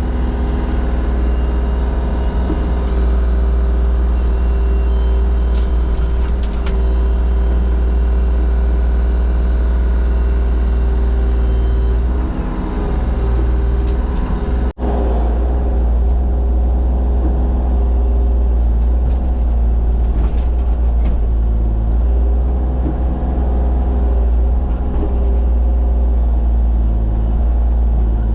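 Forestry mulching machine running hard at a steady engine speed. The sound cuts out for an instant about halfway through and carries on unchanged.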